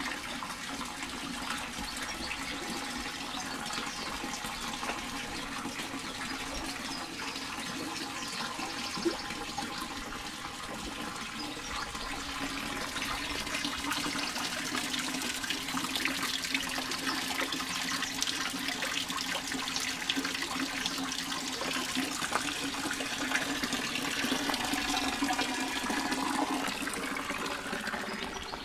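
Water from a wall-fountain spout splashing steadily into a stone basin, growing louder from about halfway through, with footsteps crunching on gravel.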